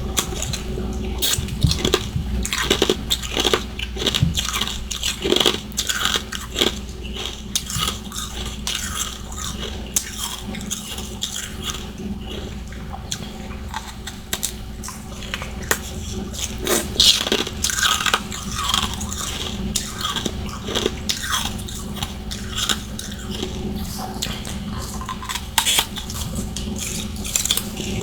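Powdery freezer frost and ice chunks being bitten and chewed, a dense run of irregular crunches.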